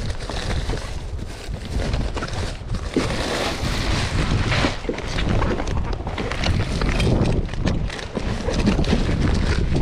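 Wind buffeting the microphone as a low rumble, with irregular crinkling and rustling from an insulated fish bag and plastic bags being handled as a fish is packed into it.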